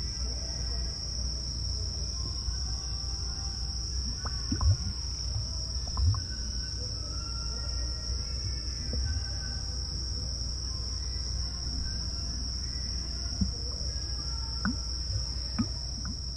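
Chorus of crickets chirping steadily and densely, over a low outdoor rumble, with a few brief thumps, the loudest about five and six seconds in.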